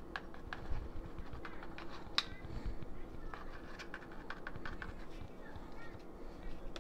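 Light, irregular clicks and taps of a plastic-capped ground cinnamon jar being handled over a glass mixing bowl, with one sharper click about two seconds in.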